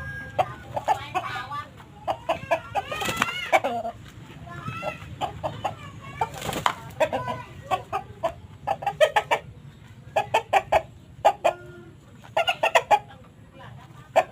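Chicken clucking in quick bursts of short notes, with a few drawn-out calls that glide up and down in the first few seconds. A few sharp noises come among them.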